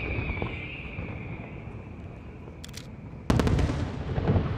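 Aerial fireworks shells: a whistle sliding slightly down in pitch fades out over the first two seconds, a few faint crackles follow, then a sharp shell burst a little over three seconds in, the loudest sound, with a rolling, echoing rumble after it.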